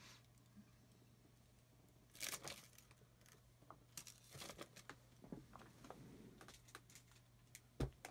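Faint, scattered crinkling and rustling of trading cards and plastic card sleeves being handled, starting about two seconds in, with a sharp tap near the end.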